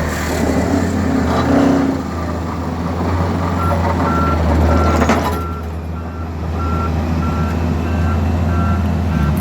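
Excavator with a pile driver attachment running with a steady low drone and surges of noise. From about four seconds in, a machine's warning alarm beeps regularly, a little under two beeps a second.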